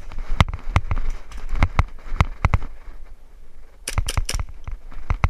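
A string of sharp knocks and clicks, irregular at about two or three a second, then a quick run of four sharper snaps about four seconds in.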